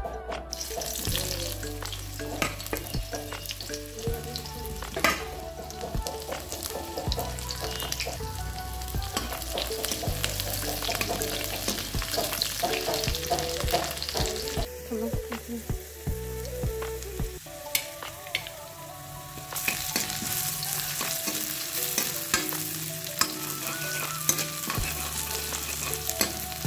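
Sliced onions hit hot oil in a steel kadai and start sizzling about half a second in, then keep frying while a metal spatula stirs them, scraping and clicking against the pan.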